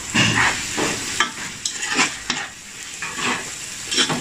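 A perforated steel spoon stirring and scraping tomatoes and onion masala around a pot, in repeated strokes two or three times a second, over the steady sizzle of the masala frying in oil.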